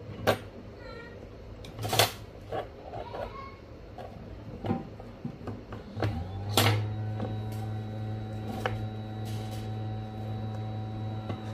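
A few sharp clicks and knocks of tools on the bench, then about six seconds in a hot air rework station's blower starts and runs with a steady hum, ready to heat the fluxed CPU off the board.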